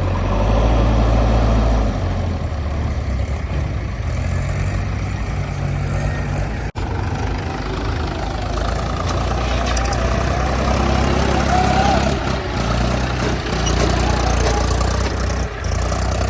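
Diesel engines of a backhoe loader and a tractor running steadily, their low hum shifting a little in pitch as the loader works. There is a brief drop-out about seven seconds in.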